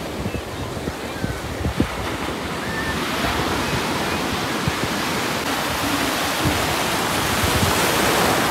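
Ocean surf breaking and washing up the beach: a steady rushing hiss that swells louder from about three seconds in.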